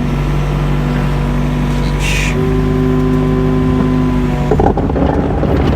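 Mini excavator's diesel engine running steadily. A short hiss comes about two seconds in, the engine note steps up slightly just after, and a rougher clattering sound takes over near the end.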